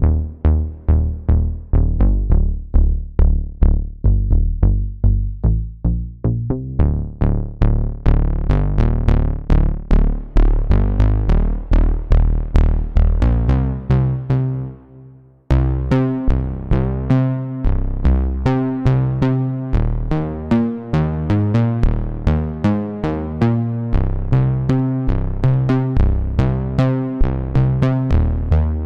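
Waldorf Pulse 2 analog monosynth playing bass presets as a repeating sequence of short, punchy notes. About fourteen seconds in, the pattern fades out and briefly stops, and a new preset starts with a busier, faster pattern.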